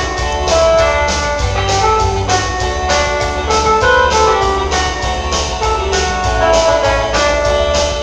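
Upbeat gospel dance music led by an electronic keyboard, with held organ-like notes over a steady, fast beat.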